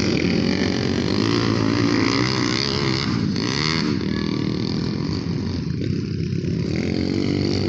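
Dirt bike engines revving hard around a motocross track, the pitch rising and falling as the bikes accelerate and pass.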